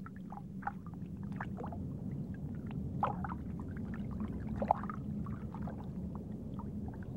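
Underwater ambience: a steady low rumble with a faint hum, and scattered short bubbling, gurgling pops.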